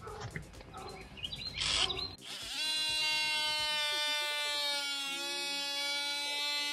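DeWalt oscillating multi-tool cutting a notch in a compressed-cardboard (MDF) baseboard: a couple of seconds of uneven rasping as the blade bites, then a steady high buzz for the rest.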